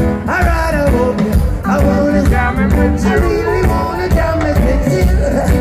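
Live reggae band playing: a male lead singer sings over electric bass, drums and keyboards.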